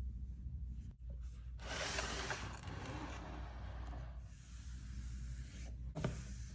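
Hands handling product packaging: two stretches of rustling and sliding, then a single sharp knock, as of the box being set down or tapped, near the end.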